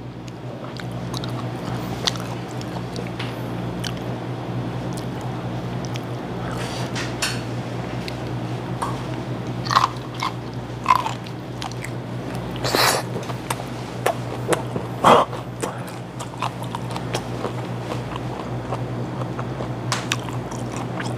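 Close-up chewing and biting of whole gizzard shad eaten bones and all, the bones crunching in sharp cracks every second or so from about six seconds in. A steady low hum runs underneath.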